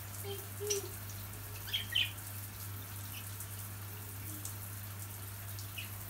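Steady hiss of shower water spraying over a wire birdcage, with a few short budgerigar chirps, the loudest about two seconds in.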